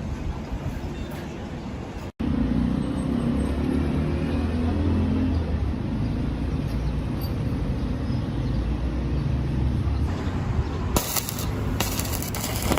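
A steady, low mechanical rumble of a running motor. It breaks off for an instant about two seconds in, then comes back louder with a low steady hum. Several sharp knocks or clicks follow near the end.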